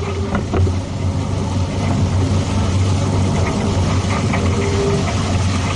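Boat engine running steadily with a low, even drone.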